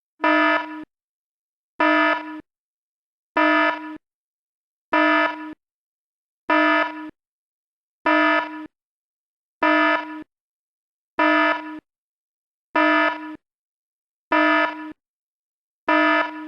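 Cartoon alarm buzzer sound effect: a buzzing tone blaring in eleven identical short blasts, about one every second and a half, with silence between.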